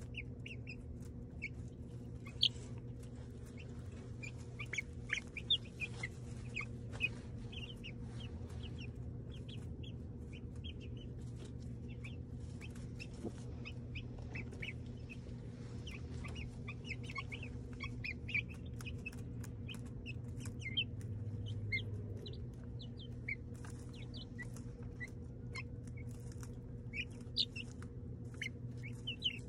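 Young backyard chickens, a Buff Orpington pullet right at the microphone among them, giving many short high peeps and soft clucks scattered throughout, with a few small clicks. A steady low hum runs underneath.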